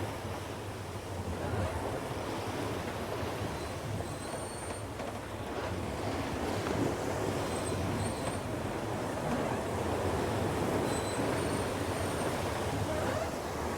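Steady rushing wind and water noise from a monohull sailboat under sail at speed, with no distinct knocks or tones standing out.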